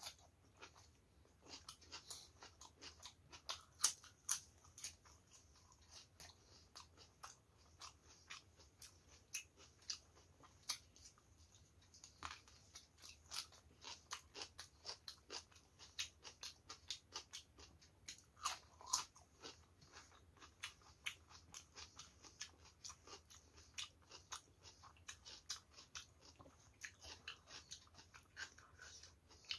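A person chewing food close to the microphone, with a steady run of crisp crunches and mouth clicks, about two or three a second.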